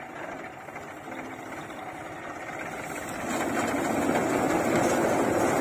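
Tractor-driven threshing machine running, engine and thresher making a steady dense mechanical din that gets louder about three seconds in.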